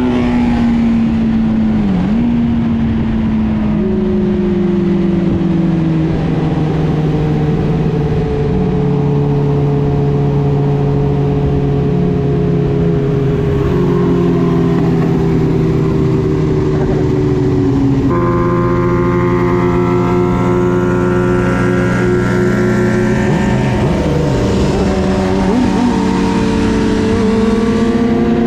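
Motor vehicle engine running under way. Its note slides slowly downward, with a short dip and jump in the first few seconds, then holds fairly steady.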